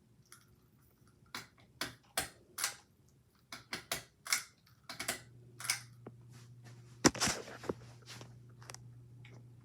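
Ceiling fan pull-chain switch being worked: a string of irregular clicks and short rattles, the loudest about seven seconds in. A low steady hum comes on about five seconds in.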